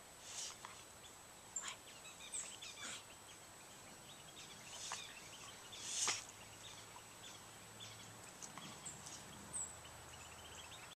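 A coyote licking its lips and smacking its mouth after a food treat, with a few short breathy sounds, the loudest about six seconds in. Faint bird chirps now and then.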